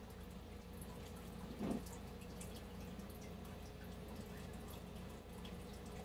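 Faint small clicks and ticks of hands handling screws and 3D-printed plastic parts of a vane supercharger housing, over a steady low hum, with one short louder low sound about one and a half seconds in.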